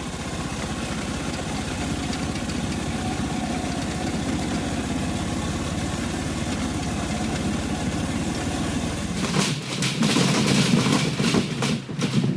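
Small railway locomotive's engine idling steadily. About nine seconds in, it gives way to a louder rough rushing noise with crackles.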